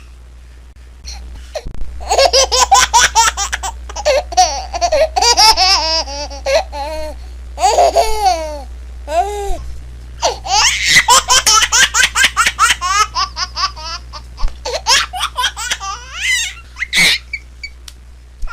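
Baby laughing in two long runs of rapid, high-pitched belly laughs, separated by a short pause about halfway through.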